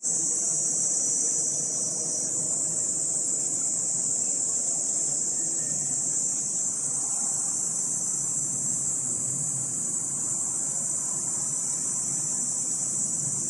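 Insects giving a continuous, high-pitched 'jii' buzzing drone at dusk, steady throughout; a lower edge of the buzz drops out about two seconds in. A faint low rumble lies underneath.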